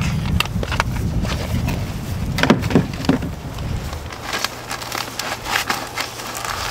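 Clicks, taps and crackles of hands working at an outdoor hose spigot and its foam faucet cover. A low rumble sounds during the first few seconds, and a steady low hum runs after about four seconds.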